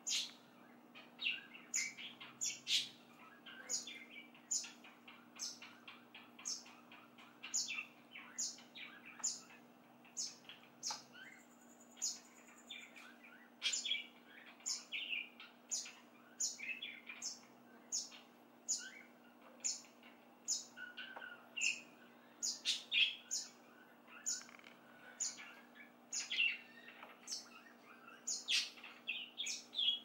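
A bird chirping over and over, short high calls about one to two a second, over a faint steady hum.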